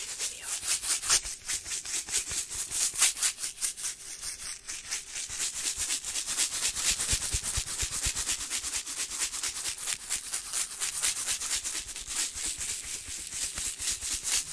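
A pink cupcake-shaped plastic candy container with candy sprinkles inside, rubbed and handled right against the microphone. It makes a fast, even run of scratchy strokes, several a second, without a break.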